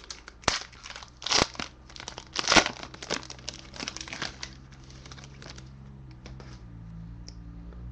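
Hands tearing open and crinkling the shiny foil wrapper of a trading card pack. The crinkling is sharp for the first four and a half seconds or so, loudest about half a second, a second and a half and two and a half seconds in, then dies down to a few faint ticks.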